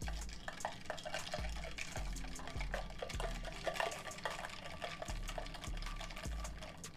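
Liquor and pineapple juice sloshing inside a metal cocktail shaker being shaken by hand, with no ice in it, and small knocks of the shaker against the hands throughout.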